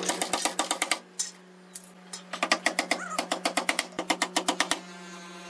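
A hammer tapping small nails into a plywood desk top in quick light blows, about eight a second: a short run, a pause, then a longer run of about two and a half seconds. A steady low hum lies underneath.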